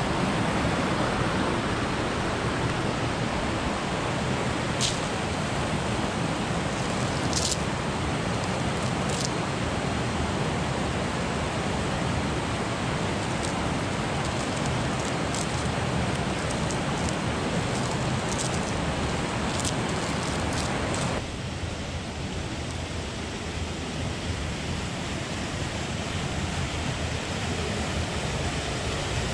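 Fast river water rushing over rocks and a small cascade, a steady dense wash. About two-thirds of the way through it drops suddenly to a somewhat quieter, duller rush. A few light clicks sound over it in the first part.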